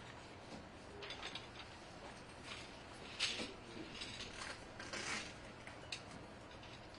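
Faint, irregular clicks and short rasping scrapes over steady room background noise, the loudest about three seconds in and again around five seconds.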